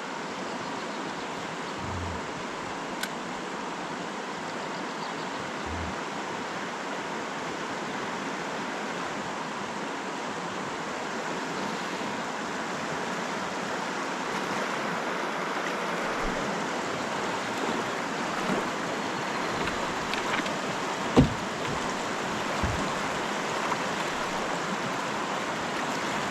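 Steady rushing water noise, with one sharp knock about 21 seconds in.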